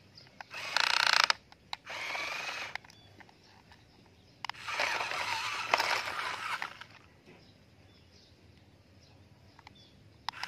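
Plastic toy dump trucks moved over brick rubble and gravel, their wheels scraping and rattling on the stones. There are three bursts: a short loud one about half a second in, another around two seconds, and a longer one from about four and a half to seven seconds.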